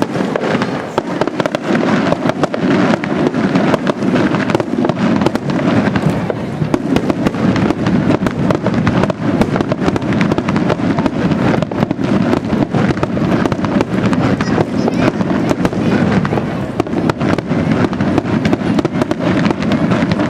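Fireworks display: a dense, continuous barrage of shell bursts and crackle, many bangs a second over a steady low rumble, with no break.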